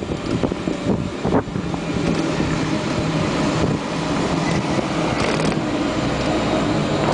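Electric motorcycle's motor humming steadily under load while climbing a slope, mixed with wind and road noise and a few knocks in the first second and a half.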